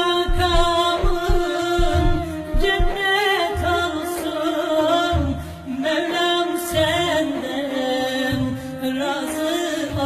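Background music: a wavering melody over a steady low drone and a regular low beat.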